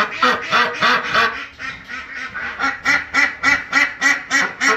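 Domestic ducks, a white Pekin and a Khaki Campbell, quacking in a rapid series of short, repeated quacks. The calls ease off for about a second partway through, then pick up again, faster, before stopping.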